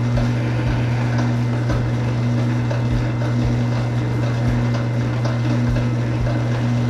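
Motorized wire-stripping machine running steadily with a low, even hum.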